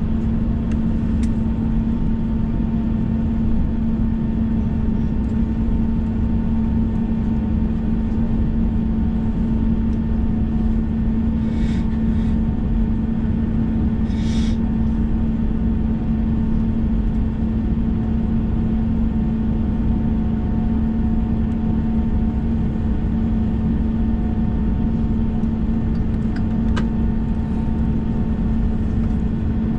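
Steady airliner cabin noise from an Airbus A321: the engines' constant drone with a steady low hum, unchanging in level. Two short hisses come a little before the middle.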